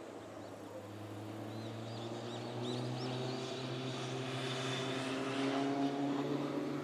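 An engine running steadily with an even hum, slowly growing louder and rising slightly in pitch as it draws nearer.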